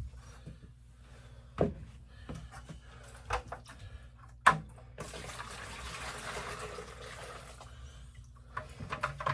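A few knocks of a container being handled, the last the loudest, then about three seconds of water pouring steadily into a container.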